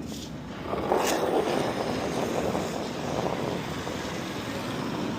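Granite curling stone rumbling as it slides down the pebbled ice, with brooms sweeping ahead of it. The sound grows louder just under a second in, with a single sharp click at about the same moment.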